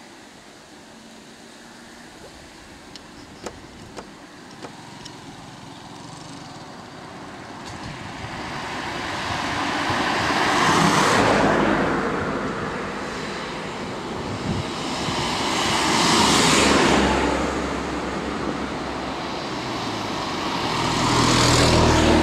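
Road vehicles passing close by on a paved road one after another. Each swells to a peak of tyre and engine noise and then fades: once about ten seconds in, again about five seconds later, and a third time at the very end, when a low engine hum shows most.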